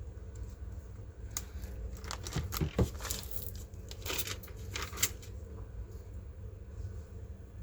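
Hands handling crinkly plastic, with a run of sharp clicks and rustles between about one and a half and five seconds in, over a steady low hum.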